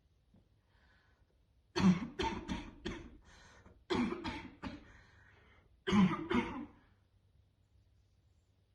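A woman coughing: harsh, barking smoker's coughs brought on by deep vape hits. They come in three fits, a run of four or five sharp coughs about two seconds in, three more about four seconds in, and two near the end.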